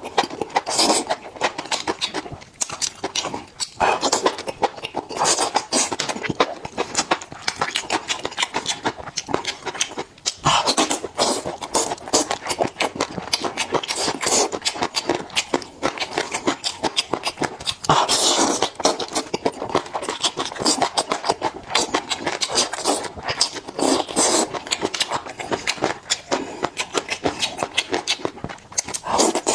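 Close-miked eating of sauce-covered fried skewers: rapid, irregular wet chewing and biting clicks and smacks that run on without pause.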